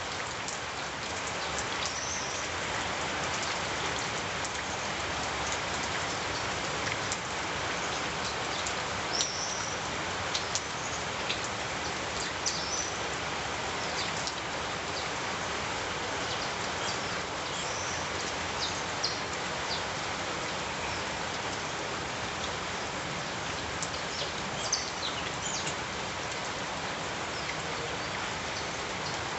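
Steady rain falling on a street, with sharp drops and drips clicking here and there. A few short, high chirps break in now and then.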